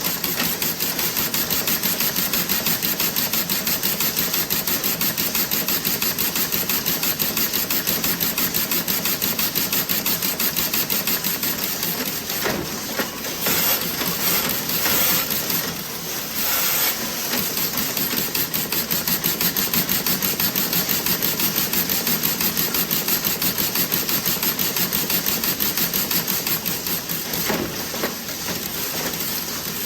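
Toe-sock knitting machine running with a rapid, even mechanical clatter; about halfway the rhythm turns irregular for a few seconds before the fast clatter resumes.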